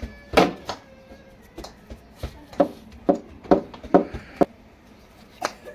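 A string of short hollow plastic knocks from a toy cricket bat and ball, about two a second through the middle, with the loudest about half a second in.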